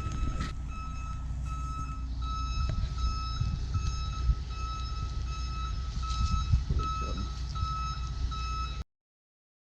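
Truck reversing alarm beeping steadily, about two beeps a second, over the low rumble of the truck's engine as it backs in with its trailer. The sound cuts off suddenly near the end.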